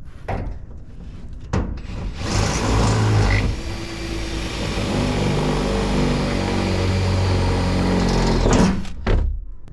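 A power drill runs for about seven seconds, its motor pitch shifting up and down as the trigger is feathered under load while it drills or drives through the truck-bed mounting for the fuel tank. A few knocks come first.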